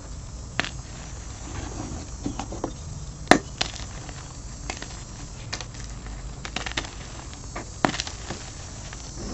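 Blocks of dyed gym chalk crushed and crumbled by hand: irregular crunches and crackles of breaking chalk, with two sharper snaps about three and eight seconds in.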